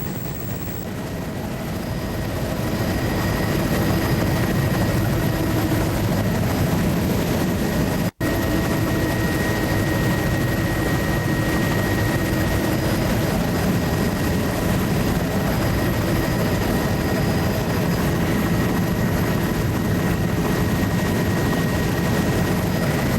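Steady engine noise of a low-flying survey aircraft, heard from inside the cabin, with a few steady tones in the drone. It swells a little over the first few seconds and cuts out for an instant about eight seconds in.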